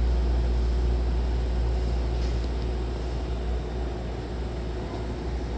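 Steady low hum of a Hankyu 1000-series electric train with a faint steady whine over it, and a few faint clicks.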